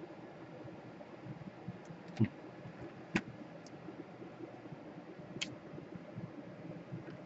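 A few sharp clicks and taps from hands handling a Sony Vaio laptop and its power plug, the loudest about two seconds in, then one a second later and another about two seconds after that.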